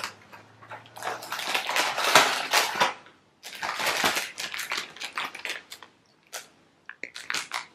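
Foil packaging pouch crinkling and a cardboard box rustling as the box is opened and the pouch pulled out, in a run of irregular crinkly bursts, with a few short separate clicks near the end.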